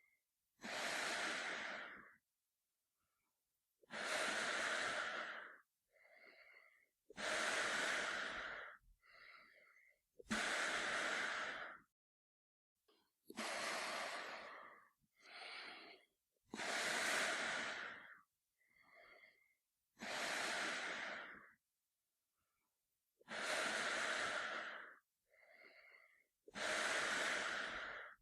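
A man breathing slowly and steadily through a gas mask, one breath cycle about every three seconds. Each cycle is a loud, hissing breath of about a second and a half followed by a shorter, fainter breath.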